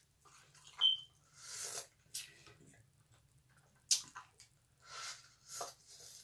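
Close-up mouth sounds of a person eating pho: chewing shrimp and sipping broth from a spoon. They come as a handful of short slurps and smacks, with one sharp smack near the middle and a brief high squeak about a second in.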